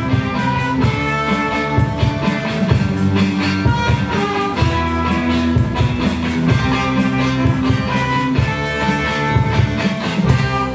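Small rock band playing live through PA speakers: electric guitar over a steady drum-kit beat.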